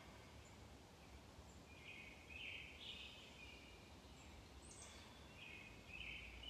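Near silence: faint outdoor ambience with a few faint high bird calls, about two seconds in and again near the end.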